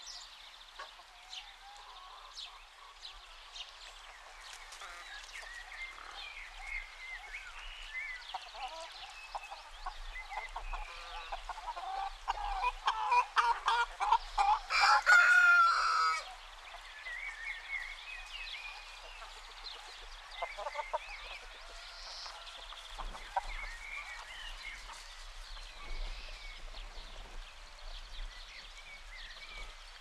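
Chickens clucking with small birds chirping. About halfway through comes a run of loud, rapid clucks, then a rooster crows once, the loudest sound here.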